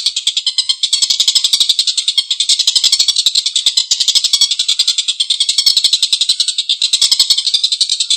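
Tengkek buto kingfisher giving its long, harsh rattling chatter, a rapid unbroken run of coarse notes.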